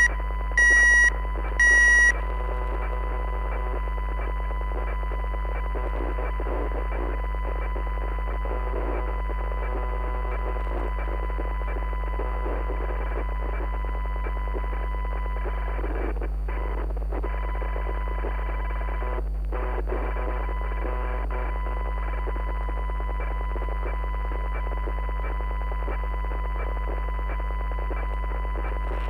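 Two short, high electronic beeps in the first two seconds, the end of a beeping alert signal. Then a steady electronic drone: a deep hum under a thin high tone and a bed of static, unchanged, like a broadcast left on dead air after an emergency alert.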